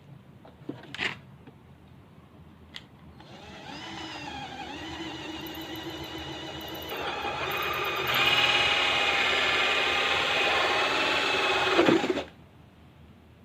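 Electric drill motor spinning up, running at a steady whine, then stepping up in speed and loudness twice before cutting off suddenly. A few light clicks come before it starts.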